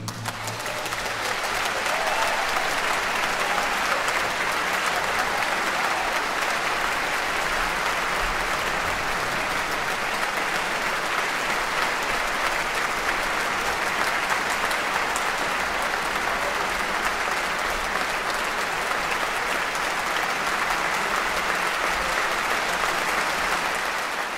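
Large audience applauding, a dense, steady clapping that swells up over the first two seconds and then holds.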